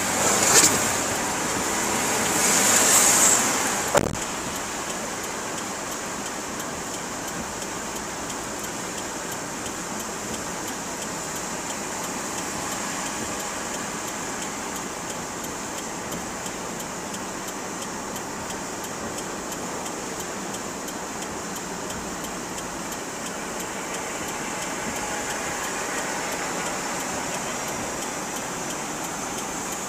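Steady hiss of heavy rain on a car, heard from inside the cabin. In the first few seconds a louder rush builds and ends in a single sharp thump about four seconds in.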